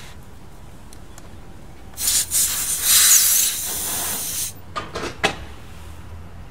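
Air hissing out of a scooter tyre valve while the screw-on chuck of a portable inflator's hose is threaded onto it, starting about two seconds in and lasting about two and a half seconds, then a few light clicks.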